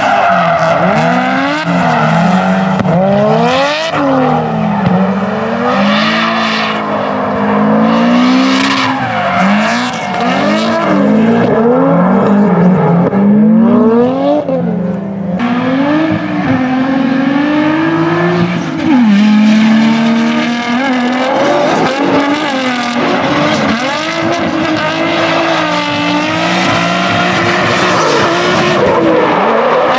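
Drift cars' engines revving up and down repeatedly as they slide through corners, with bursts of tire squeal. The sound changes abruptly about halfway through.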